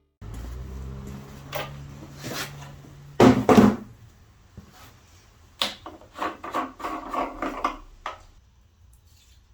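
Knocks and a rough clatter as an old walk-behind lawnmower is handled and checked over. A low hum for the first three seconds, a loud scraping clatter just after, then a quick run of sharp knocks.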